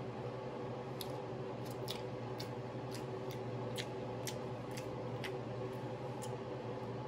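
Close-miked chewing with the mouth closed: short, wet mouth clicks about twice a second over a steady low hum.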